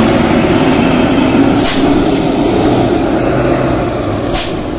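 Heavy loaded tandem-axle truck passing close while going downhill, its running gradually fading as it pulls away. Two short hisses, typical of air-brake release, come about a second and a half in and again near the end.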